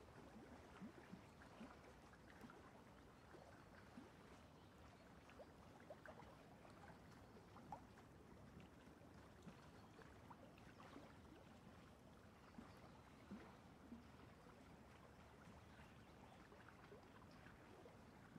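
Near silence: faint room hiss with scattered soft ticks of a small brush dabbing acrylic paint onto canvas.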